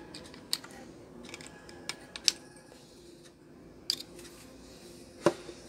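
Light clicks and taps of a plastic oil bottle and electric fan motor parts being handled while the motor shaft and bushing are oiled: about five sharp clicks spread over a few seconds, over a faint steady hum.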